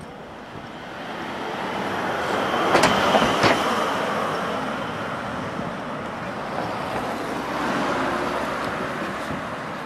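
Cars passing close by on the road, tyre and engine noise swelling to a peak about three seconds in, with two sharp knocks in quick succession at the peak. A second swell of passing traffic comes near the end.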